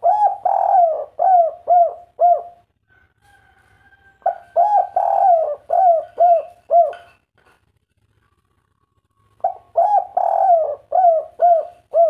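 Spotted dove (derkuku) cooing: three phrases of several rolling, arched coo notes, each phrase a couple of seconds long with pauses between, the call type Indonesian keepers call "kuk 3".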